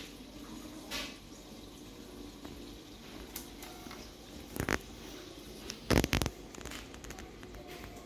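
Aquarium water running and trickling over a low steady hum. A few short knocks and rustles, the loudest about six seconds in.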